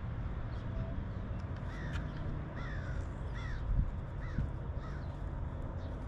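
A bird calling repeatedly, about five short calls in a row, over a low steady rumble of wind on the microphone.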